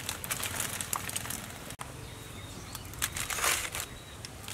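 Aluminium foil around a grilled fish crinkling and rustling as it is handled, in quick crackles at first, then a louder rustle about three seconds in.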